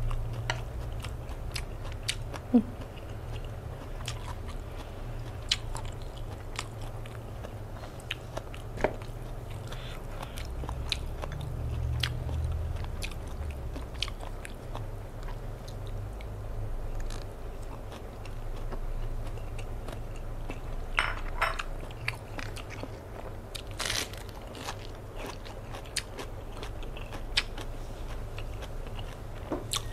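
Close-up chewing and biting of raw salmon and crisp romaine lettuce, with crunchy bites and scattered short sharp clicks.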